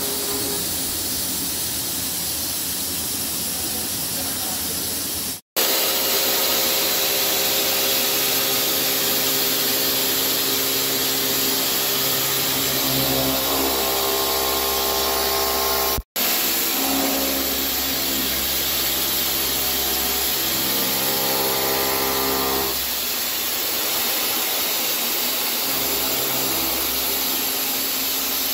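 CNC vertical milling machine cutting a steel split-gear blank: the spindle and cutter run steadily with several humming tones over a constant hiss, the tones changing as the cut changes. The sound breaks off suddenly twice.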